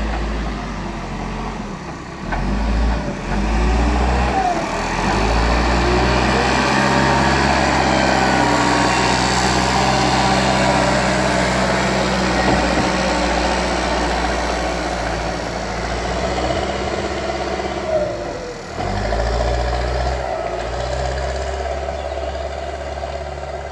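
Backhoe loader's diesel engine running under work, rising in speed about five seconds in and easing off briefly near the end before picking up again.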